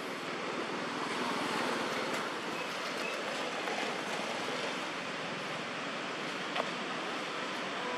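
Steady rushing noise, with one sharp click about six and a half seconds in.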